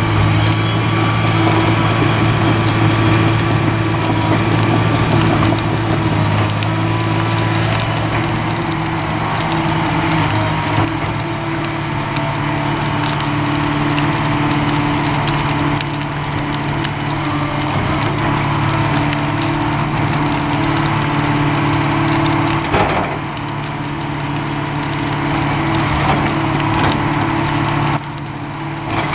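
Tracked hydraulic excavator running steadily under load while it tears apart a wooden barn, with wood cracking and splintering throughout and one louder crack late on.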